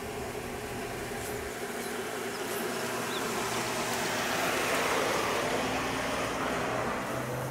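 Zamyad 24 pickup truck driving slowly along a dirt track, its engine hum and the crunch of tyres on dirt growing louder as it comes close, peaking about two-thirds of the way through as it passes, then easing off slightly.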